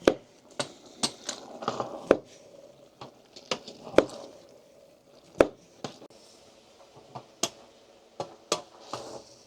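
A knife knocking on a cutting board in irregular strokes while pizza toppings are cut up, with a few louder knocks among lighter clicks.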